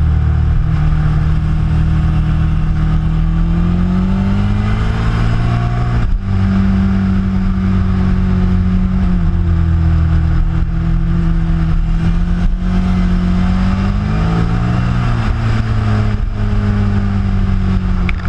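Motorcycle engine running under way, its note rising and falling with the throttle through the bends, with a sudden brief break about six seconds in like a gear change and another drop and rise in pitch near the end.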